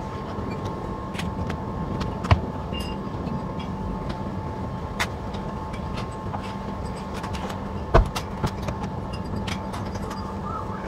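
Pressure washer running steadily with water spraying: a constant motor hum under spray noise. A sharp knock sounds about two seconds in and again about eight seconds in.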